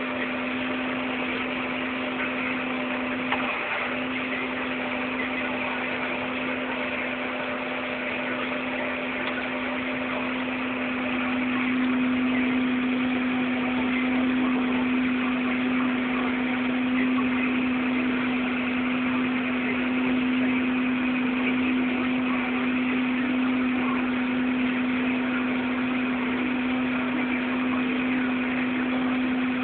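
Harvest machinery running steadily during on-the-go grain unloading: a steady engine drone with one constant hum, getting a little louder about twelve seconds in.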